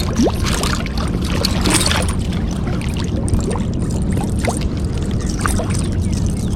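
River water rushing and gurgling close by, with bubbling and small splashes over a steady low rumble.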